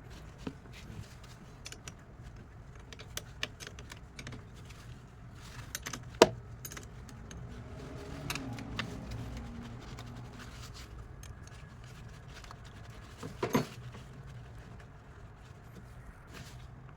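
Light metallic clicks and clinks of hand tools and loose metal parts being handled while taking out a car battery, with two sharper knocks, one about a third of the way in and one near the end.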